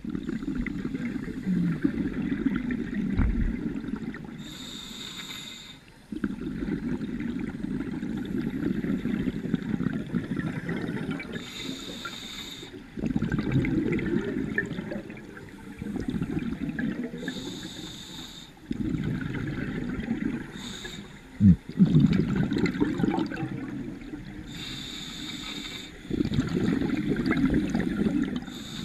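Scuba diver breathing through a regulator underwater, heard through the camera's waterproof housing. Each breath is a short high hiss of inhaling, followed by a long low bubbling of exhaled air, about every six seconds. A single sharp knock comes about two-thirds of the way through.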